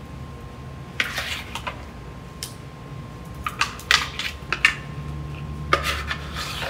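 A spoon scraping and tapping a food processor bowl, knocking a thick tahini dip out into a stainless steel mixing bowl: a string of short clinks and scrapes, with a low steady hum underneath.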